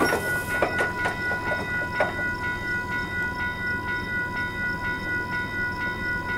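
A railroad grade-crossing bell ringing steadily, about three strikes a second, over the low rumble of a passing train. A few louder knocks come in the first two seconds.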